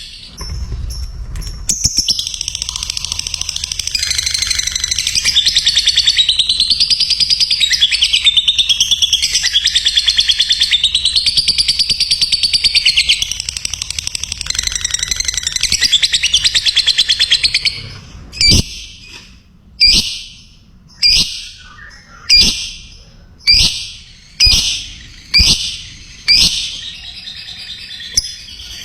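Lovebird's long, fast chattering trill (ngekek), wavering up and down in pitch for about seventeen seconds. It then breaks into about nine sharp single calls, roughly one a second, each falling in pitch.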